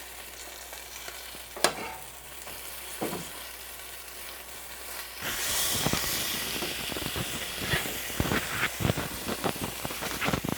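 Flour-coated tilapia pieces frying in oil in a pan, a steady sizzle that swells louder about five seconds in. Sharp crackles and clicks come now and then, more often near the end.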